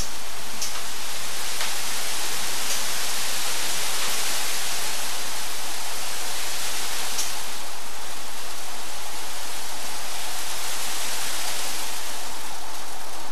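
Steady rushing hiss of small cooling fans blowing air into and out of thin plastic garbage bags, with a few faint clicks scattered through it.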